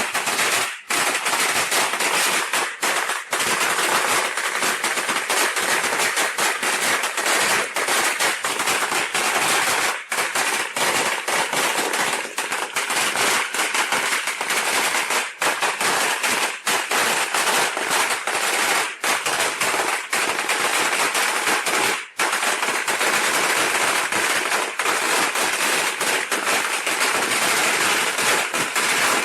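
A string of Chinese firecrackers (biānpào) going off in a dense, continuous crackle of rapid bangs, with only a couple of momentary gaps.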